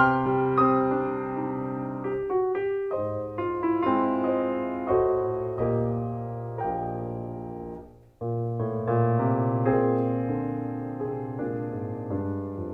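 Solo piano music, notes struck and left to ring, with a brief break about eight seconds in before the playing resumes.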